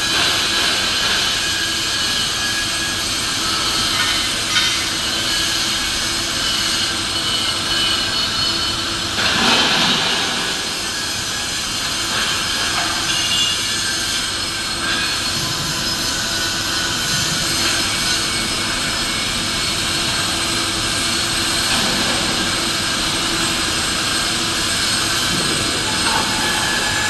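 Steady industrial noise of a pipe-welding workshop: a constant hiss with a low steady hum underneath, and a louder rushing swell about nine seconds in.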